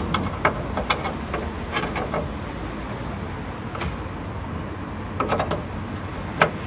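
Open-ended spanner working a bolt in a car's engine bay: scattered light metallic clicks and taps as the tool is fitted and turned, the sharpest one near the end, over a steady low background hum.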